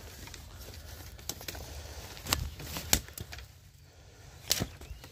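Boots stepping through soft, wet riverbank mud: a few sharp, irregularly spaced squelching steps over a low rumble.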